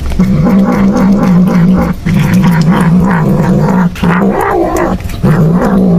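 A cat growling over a raw fish it is eating, a low wavering drone in long stretches with brief breaks.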